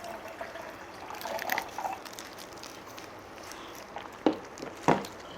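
Cider being poured into a cup: a soft liquid trickle, with two sharp knocks near the end.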